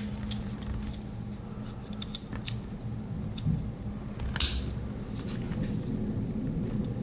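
Handling noise from a Victorinox Farmer X Alox Swiss Army knife: scattered light metallic clicks as the tools are worked, with one brief scrape about four seconds in. A faint steady hum lies underneath.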